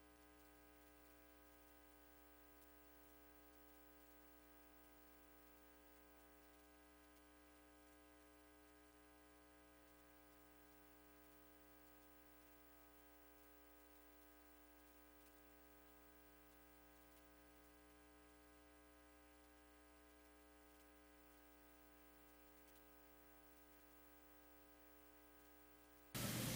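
Near silence with a faint steady electrical hum; a faint rise in noise comes in just before the end.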